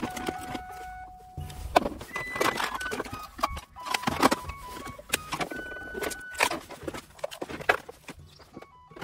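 Clear plastic tackle cases being handled on a wooden table: lids and small compartment boxes clicking, knocking and clattering as they are opened, lifted out and set down, with small tackle rattling inside.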